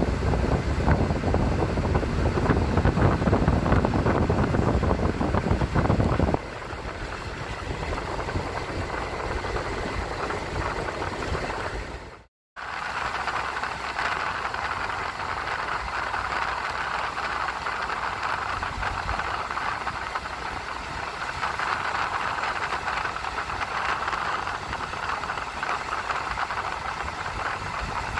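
Steady travel noise of a moving vehicle. It is heavier, with a deep rumble, for about the first six seconds, then lighter. It drops out briefly just after twelve seconds, then goes on as an even hiss.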